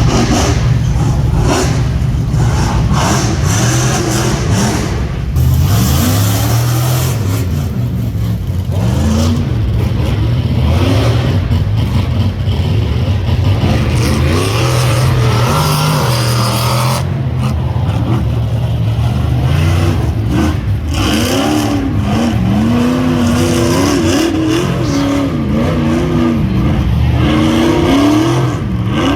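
Rock bouncer engine revving hard, its pitch rising and falling again and again as the throttle is worked on and off.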